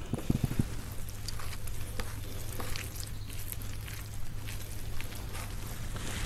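Quiet eating sounds: scattered faint clicks and taps over a low steady hum.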